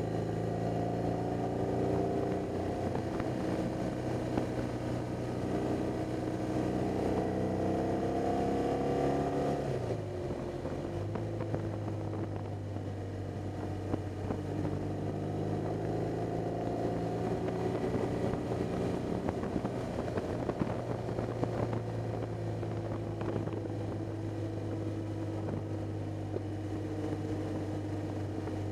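BMW R 1200 GS flat-twin engine running under way, with wind noise. Its note climbs steadily for about nine seconds, drops sharply about ten seconds in, then holds steady and eases slightly lower.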